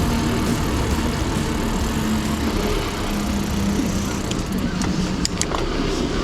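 Mountain bike riding with tyre rumble and wind noise on a handlebar or helmet-mounted action camera, a steady rushing sound with a low hum. A few sharp clicks from the bike come in the second half.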